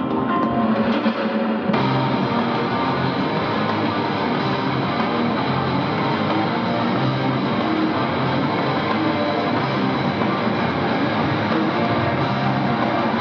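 Rock music with guitar and drums, which fills out into a dense, full sound about two seconds in.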